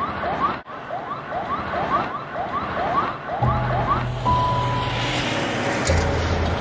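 Fast yelping siren, its pitch sweeping up and down about three times a second. After about three and a half seconds it gives way to a low, steady droning music bed.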